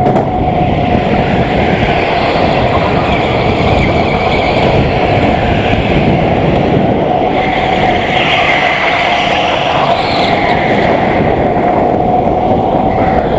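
Onboard sound of a Biz Karts Eco Electric NG1 electric go-kart driven at racing speed: the electric drive motor whining steadily, its higher tones rising and falling with speed, over loud rumbling noise of wind and tyres on the track surface.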